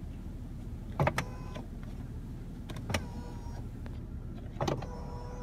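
Electric motor of a 2015 Jaguar XJL's power tilt-and-telescopic steering column, running in three short spurts as the column adjuster is worked. Each spurt starts with a click and gives a brief steady whine of under a second.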